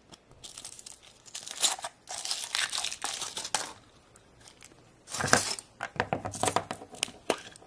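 Foil wrapper of a Kinder Surprise chocolate egg crinkling and tearing as it is peeled off. About five seconds in comes a sharper crack, followed by more crackling and clicks as the egg is broken open to get at the plastic toy capsule.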